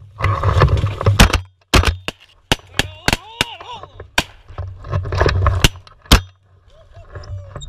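A quick string of sharp cracks and knocks over a low wind rumble, the loudest about a second in, with a couple of short rising-and-falling calls about three seconds in and again near the end.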